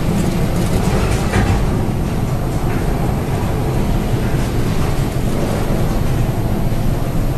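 Steady low rumble and rushing of storm wind and heavy sea heard from a bulk carrier's bridge, with the wash of waves breaking over the bow.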